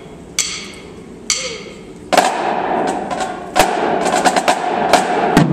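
Marching drumline percussion: two evenly spaced sharp clicks counting time, then about two seconds in the snares, tenors and bass drums come in together and play a fast, loud pattern of sharp hits.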